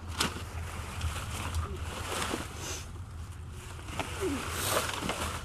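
Rummaging through dumpster contents: things rustled and knocked about, with a few sharp clicks, over a steady low rumble.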